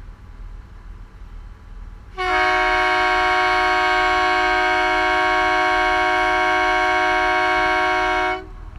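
A boat's horn sounds one long, steady blast of about six seconds, a two-note chord that starts sharply a couple of seconds in and cuts off near the end, over the low steady rumble of the vessel's engines.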